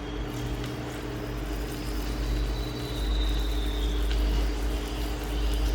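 Shrimp sizzling in oil in a cut-open soda can, a steady hiss over a low steady hum and rumble that grows louder about three seconds in.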